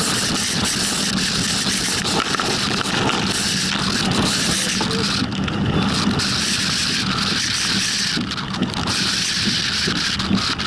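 Steady rushing noise of wind and a vehicle driving on a wet road, with no breaks.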